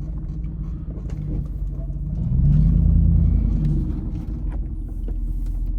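Third-generation Dodge Ram 1500's Hemi V8 running under light load, heard from inside the cab. About two seconds in it swells louder for a second or so, then settles back, with light knocks and rattles throughout.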